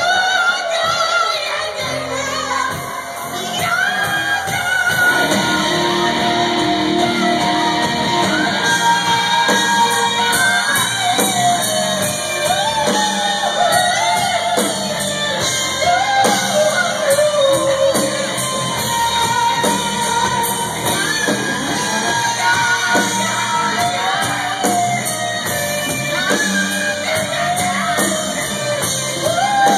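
Live band playing in a large club room, with a lead singer's voice over the band and steady drum strikes.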